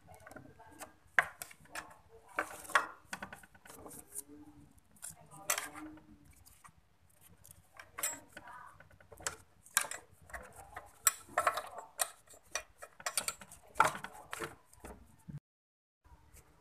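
Irregular clicks, knocks and clatter of hard plastic panels and small parts being handled as a motorcycle's front fairing is taken off. The sound cuts out briefly near the end.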